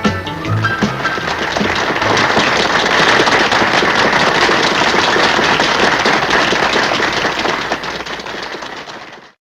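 Audience applause at the end of a country song: the band's last notes die away in the first second, then clapping swells, peaks about three seconds in, tapers off and cuts off abruptly near the end.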